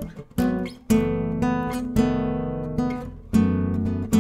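Background music: acoustic guitar playing strummed chords, with fresh strums a little under a second in, about two seconds in and past three seconds in.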